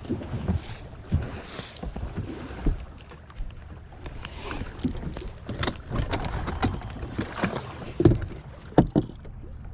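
Small waves slapping the hull of a bass boat, with wind on the microphone, and scattered clicks and knocks as the angler handles gear on the front deck; the two sharpest knocks come near the end.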